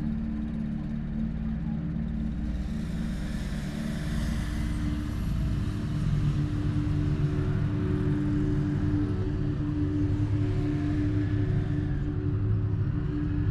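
Motor vehicle running with a steady low hum. A louder rush of noise comes in about two and a half seconds in and fades near the end.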